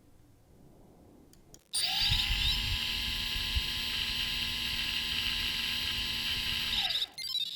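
3DR Solo quadcopter's brushless motor, with no propeller, run up at 10% power for about five seconds: a whine that rises as it spins up about two seconds in, holds steady, then falls away as it winds down near the end. It is one of the motors being checked because the owner thinks there may be a problem with it.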